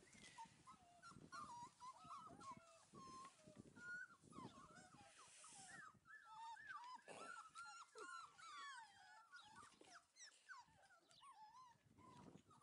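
Several five-week-old Texas Heeler puppies whining and whimpering, faint high wavering cries that overlap almost continuously.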